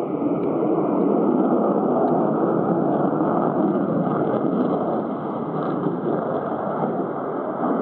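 JASDF F-15J fighter's twin jet engines, a loud, steady rushing jet noise as the aircraft manoeuvres in banked turns close by, easing slightly in the second half.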